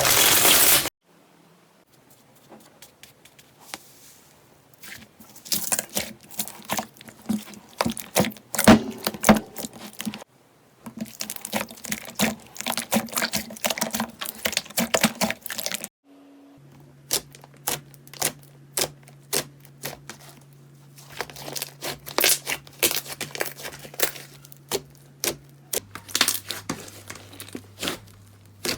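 Slime being squeezed, poked and stretched, giving irregular crackling and popping clicks. It runs as several short takes, one after another, each starting and stopping abruptly.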